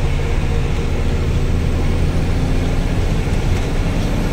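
Truck engine running steadily on the move: an even low drone with road noise.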